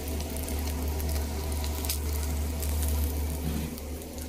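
Batter-coated green chillies frying in oil in a non-stick pan: a steady sizzle with a few faint pops over a steady low hum.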